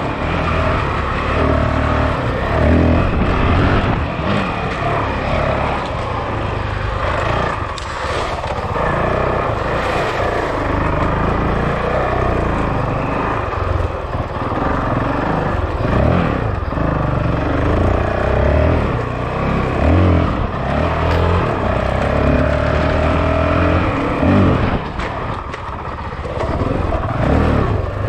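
Honda CRF450L single-cylinder dual-sport motorcycle engine running under way, the revs rising and falling with the throttle.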